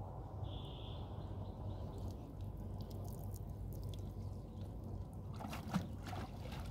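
Water dripping and splashing from a wet cast net held over the side of a wooden boat. The patter of drips thickens about five seconds in, over a steady low rumble.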